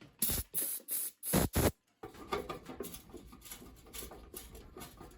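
Several short blasts from a compressed-air blow gun, about five in quick succession in the first two seconds. After them come small clicks and rattles of metal heater parts being handled.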